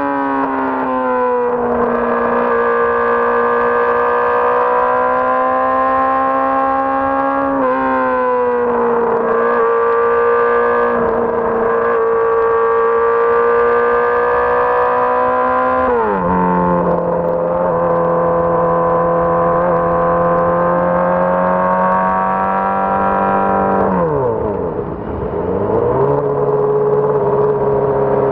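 2006 Honda CBR600RR inline-four motorcycle engine running at high, steady revs. Its pitch drops a few times, then near the end dips low briefly and climbs back to a lower steady note.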